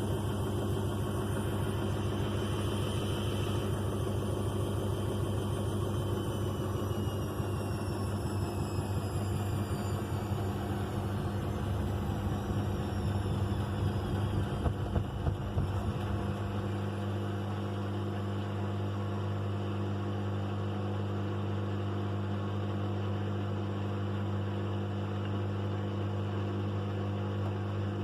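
Bauknecht WA Eco Star 61 front-loading washing machine coming off its final spin. The motor's whine falls in pitch over several seconds, the machine knocks unevenly as the drum slows, and about 17 seconds in the drum's low rumble stops, leaving a steady hum.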